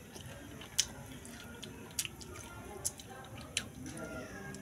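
A pressure cooker heating on a gas burner, with four sharp, irregular drip-like clicks in about three seconds.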